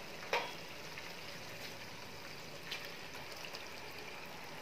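Onions and tomatoes frying in oil in a pot, a soft steady sizzle, with one short knock about a third of a second in and a faint tick near the three-second mark.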